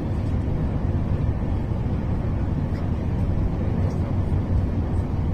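Steady low rumble of an HC85-series hybrid diesel-electric express train running, heard inside the passenger carriage.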